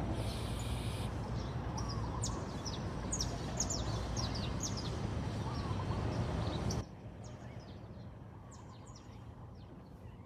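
Small birds chirping repeatedly in short high calls over a steady outdoor background noise, which drops away abruptly about two-thirds of the way through, leaving the chirps clearer.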